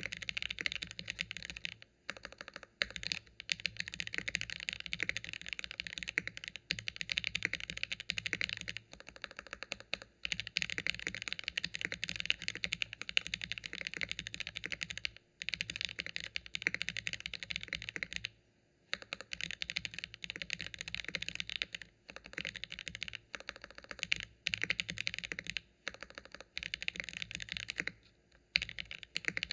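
Fast, continuous typing on a KBDfans Phase One 65 mechanical keyboard with factory-lubed Gateron Oil King linear switches and GMK keycaps, its case foam removed. The keystrokes come in a dense run, broken by a few short pauses.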